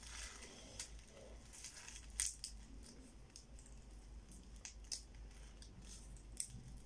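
Faint handling noise of small gift packaging being picked at with the fingers: scattered light clicks and rustles, the sharpest click about two seconds in.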